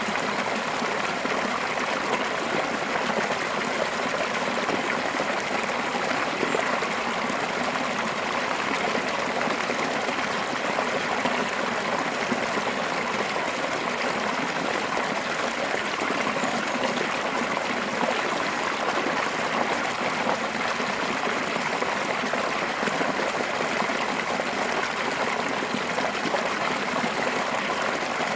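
Fast-flowing mountain stream, water spilling over rocks in a curving fall, a steady rush and babble.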